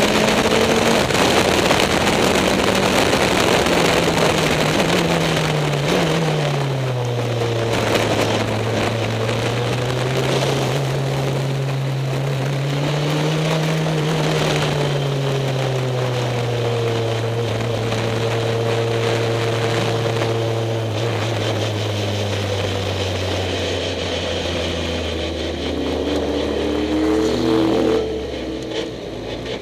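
Caterham SP/300.R's engine heard from the cockpit with wind rush, revs held high at first, then falling about six seconds in. It runs on at lower, gently rising and falling revs, steps lower again later, and quietens near the end as the car slows toward the pits.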